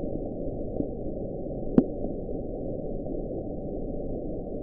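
NOAA hydrophone recording of the underwater 'Bloop': a steady low hiss with one short rising chirp a little under two seconds in. Some scientists take the sound for ice breaking off Antarctica.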